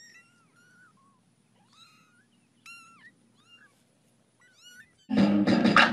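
A litter of tiny kittens mewing, many short high-pitched calls that rise and fall, several kittens overlapping. About five seconds in, loud music cuts in.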